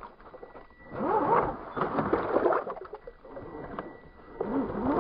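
Electric motor and geartrain of an RC scale rock crawler whining, the pitch sliding up and down with the throttle. It comes in from about a second in, drops away around the middle, and picks up again near the end.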